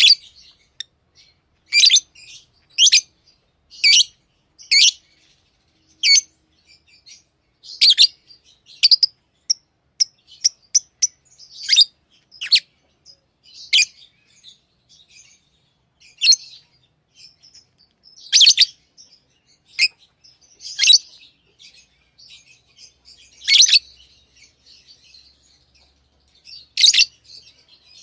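Lovebirds chirping: short, sharp, high-pitched calls come irregularly, about one every second or two, with fainter chatter between them.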